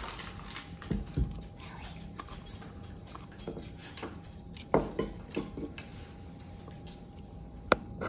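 Small metal clicks and taps as a pick works the pins out of an Assa Ruko lock cylinder: a few scattered ticks, with a sharper click near the end.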